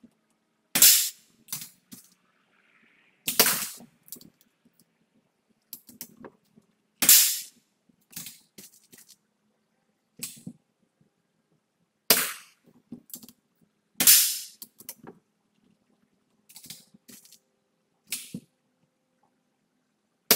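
BRK Ghost pre-charged pneumatic air rifle firing a string of shots: five sharp cracks at uneven gaps of two to five seconds, and a sixth right at the end. Fainter clicks fall in between.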